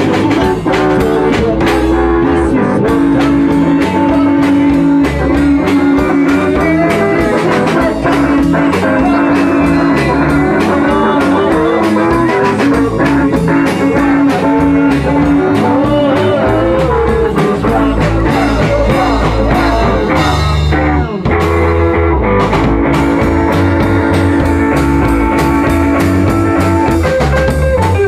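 Live rock band playing rockabilly: electric guitars, bass guitar and a drum kit, loud and continuous.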